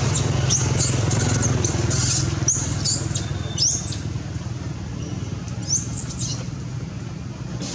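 Young macaque giving distress cries: a series of high-pitched squeals that rise and fall, about eight in the first four seconds and one more about six seconds in, over a steady low rumble.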